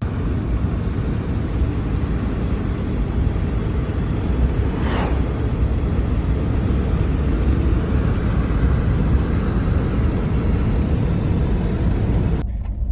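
Jeep driving, with a steady deep rumble of road and wind noise. A brief hiss rises over it about five seconds in.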